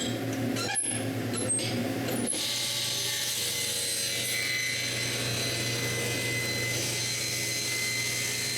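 Power saw running and cutting into a basswood log, with a steady motor hum under the noise of the cut. The sound breaks off briefly a few times in the first two seconds, then runs on steadily.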